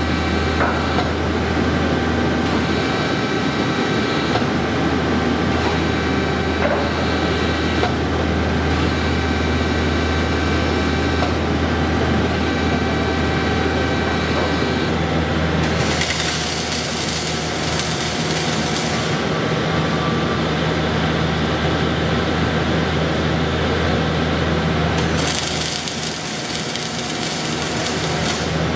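Kotec KTAS 4060 built-up beam assembling and straightening machine running, a steady low hum with faint steady whines over it. Loud hissing comes in twice: about halfway through for roughly three seconds, and again near the end.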